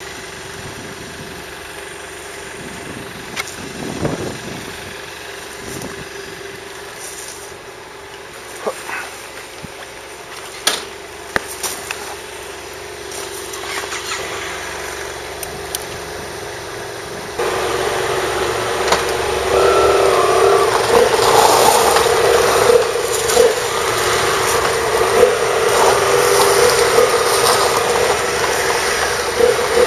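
Motorcycle engines idling, with a few sharp clicks and knocks in the first half. About halfway through, a nearer motorcycle engine starts and the sound jumps in level, then runs steadily.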